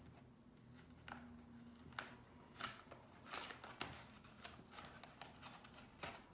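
A thin paperboard box of Polaroid Color i-Type film being opened by hand, faint: a few scattered scratches and small snaps of card as the flap is worked loose.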